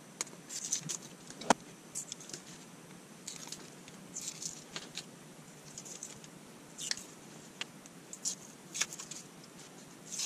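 Protective film being peeled by hand off small laser-cut acrylic pieces: short crackly rustles in scattered bursts, with small clicks and a sharp tap about a second and a half in.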